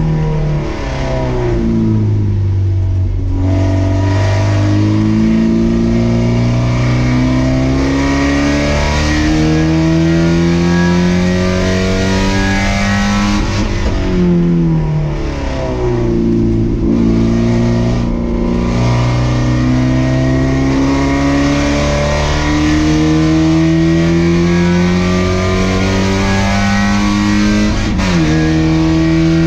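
Race car engine heard on board, pulling hard through the gears: long rising climbs in pitch, each cut off by a sudden drop at an upshift. Twice, near the start and about halfway through, the pitch falls steadily as the car slows, then it climbs again.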